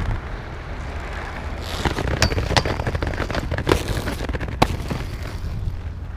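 Inline skate wheels rolling on rough pavement, with a low rumble of wind on the microphone. From about two seconds in comes a run of sharp clacks and knocks as the skater jumps at the rail and lands. The last and loudest knock is at about four and a half seconds: a missed rail trick that never touches the rail.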